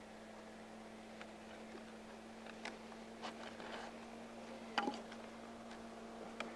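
Faint scrapes and small clicks of hands working thin root strands through the birch bark at a bark canoe's stem, over a steady low hum. The sharpest click comes nearly five seconds in.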